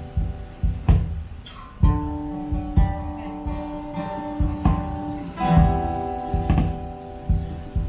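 Acoustic guitar strummed in slow chords, about one strum a second, each chord left to ring.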